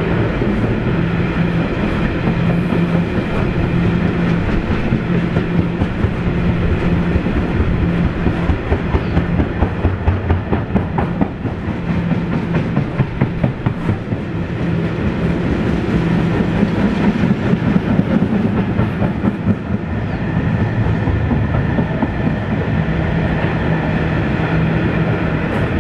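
Loaded freight wagons of a passing train rolling by at speed, their wheels clattering rhythmically over the rail joints, loudest in the middle, over a steady low hum.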